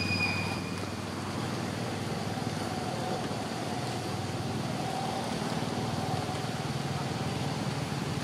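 Steady low outdoor rumble, like distant traffic, with a high, drawn-out whistle-like call that ends about a second in.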